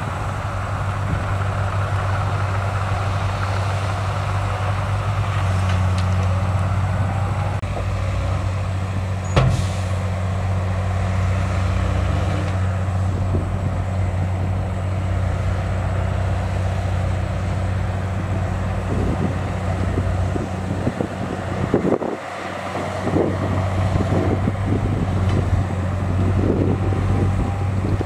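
Heavy diesel engine of earthmoving machinery running steadily, with one sharp knock about nine seconds in. The engine sound dips briefly around twenty-two seconds, then picks up again with irregular clattering.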